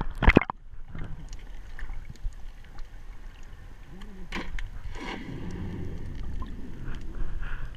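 Water sloshing around a GoPro's waterproof housing as it goes under, then muffled underwater rumble and hiss with faint clicks, swelling briefly about five seconds in.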